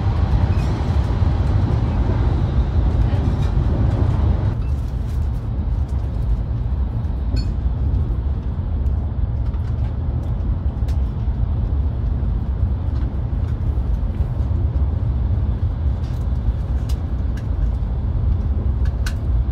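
Steady low rumble and rushing noise of a Hayabusa shinkansen running at speed, heard inside the passenger cabin. The hissing part of the rush drops about four and a half seconds in, leaving mostly the low rumble, with a few faint ticks.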